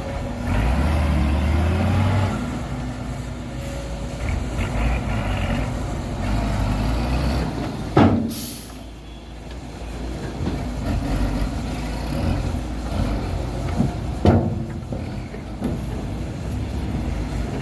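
Heavy dump truck's diesel engine running, with two sharp air-release hisses from the air brakes, about eight seconds in and again about six seconds later.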